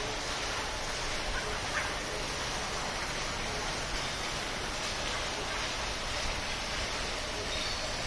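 Steady splashing of a pond fountain, with a faint short bird call about a second and a half in.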